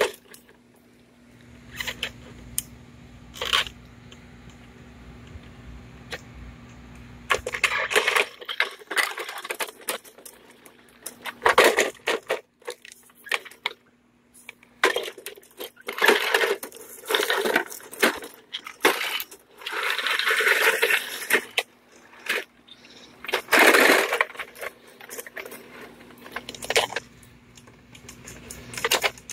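Hands handling a Polaris pool cleaner's plastic body, wheels and cloth debris bag: irregular clicks, knocks and rustles, busier after the first several seconds.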